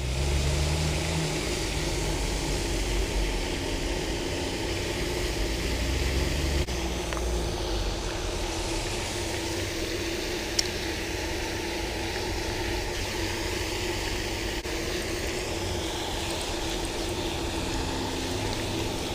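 Steady outdoor background noise with a constant low hum, a low rumble like wind on the microphone over the first few seconds, and one sharp click about ten and a half seconds in.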